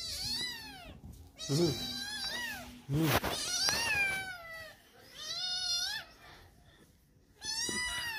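A tabby-and-white kitten meowing over and over in high-pitched calls, five meows about one every one and a half seconds.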